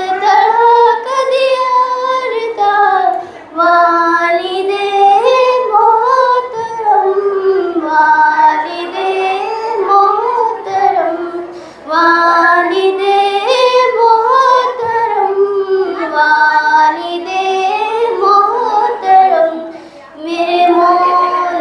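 A girl singing an Urdu nazm solo into a microphone: one melodic voice with held, gliding notes, in phrases of a few seconds with short breaks between them.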